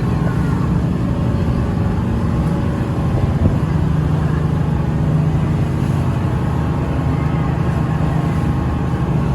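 Tour boat's engine running steadily under way, a loud low hum with a constant pitch, heard from on board.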